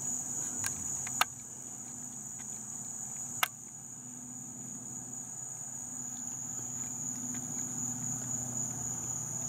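Steady high-pitched chorus of night insects such as crickets, over a low steady hum. Two sharp clicks stand out, about a second in and again about three and a half seconds in.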